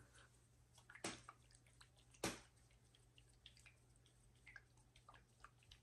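Faint clicks and taps of small objects being handled, with two sharper taps about one and two seconds in; otherwise near silence.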